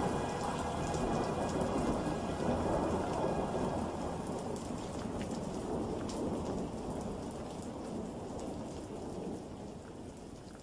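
Heavy rain with thunder rumbling, fading out gradually over the second half.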